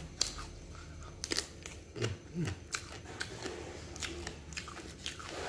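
Close-up eating sounds of chicken satay: scattered sharp clicks and smacks from chewing and from handling the skewers and plate.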